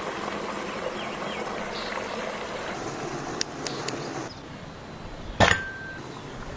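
Outdoor background hiss with a few faint chirps and small clicks, then one sharp clink of cookware or utensils that rings briefly on a single high note.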